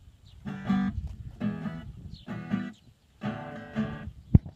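Acoustic guitar strumming four chords about a second apart, a short musical sting, followed near the end by a single sharp click.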